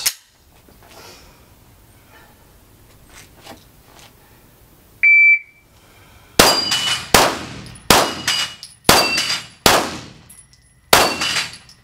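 A shot timer beeps once. About a second and a half later a Glock pistol fires six shots over about four and a half seconds at a steel plate rack, and the steel plates ring after the hits. Two of the six shots miss, for a run time of 5.91 seconds.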